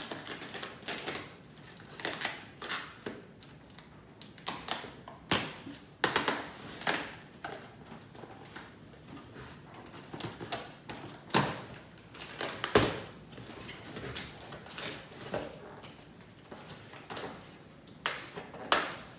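Scissors slitting the packing tape on a cardboard box, then the cardboard flaps being pulled open: a run of irregular scrapes, clicks and rustles.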